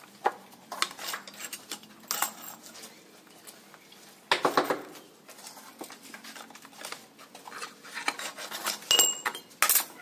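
Steel rebar being bent by hand into a stirrup on a nailed wooden jig: irregular metallic clinks and knocks of the bar and bending tool against the rod and pins, loudest about four and a half seconds in and again near the end, where one strike rings briefly.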